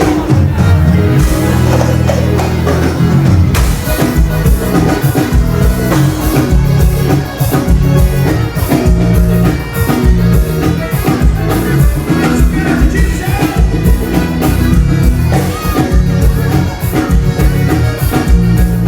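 Forró band music with singing over a steady, driving beat.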